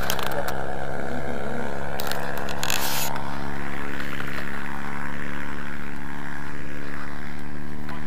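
A steady engine-like drone holds one pitch throughout. Brief bursts of wind buffet the microphone about two to three seconds in.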